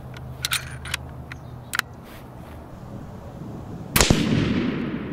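A few small clicks, then, about four seconds in, a single shot from a Remington 700 ADL bolt-action rifle in .30-06: a sharp crack followed by a rumbling echo that dies away.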